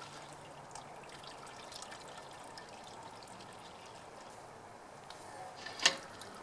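Wort trickling from a squeezed brew-in-a-bag grain bag down into the brew kettle, as the spent grain is pressed to wring out the last of the pre-boil wort. There is a single sharp clink near the end.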